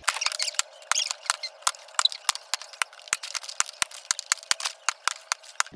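Plastic water bottle being flipped and handled, giving a rapid, irregular run of sharp clicks and knocks, about ten a second, thin and without any low thud.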